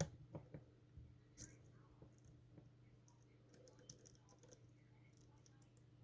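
Faint metallic clicks and ticks of a lock pick and tension wrench working the pins inside a Master Lock M930 padlock during single-pin picking: one sharp click at the start, then a few lighter ones spread over the next few seconds.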